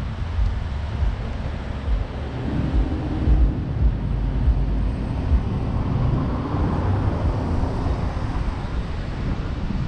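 Road traffic going by on a city street, one vehicle swelling past about two-thirds of the way in, with gusty wind buffeting the microphone.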